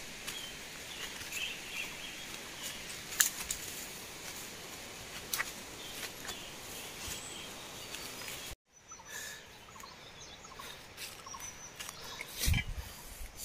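Outdoor background noise, a steady hiss with scattered small clicks, cut off briefly about two-thirds of the way through, then quieter with a few short bird chirps.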